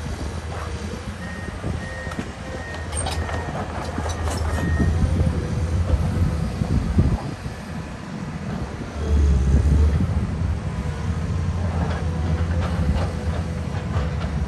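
Komatsu PC210 hydraulic excavator's diesel engine working under changing load, with scattered metal clanks. The engine swells, dips briefly just past the middle, then surges again.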